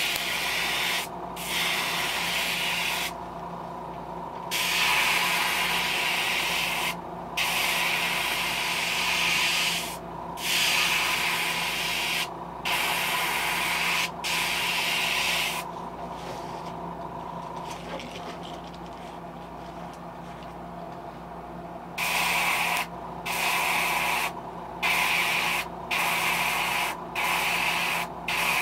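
Airbrush spraying blue paint in on-off bursts of hissing air, each a second or two long as the trigger is pressed and let go, turning to shorter bursts about one a second near the end. A steady low hum runs underneath.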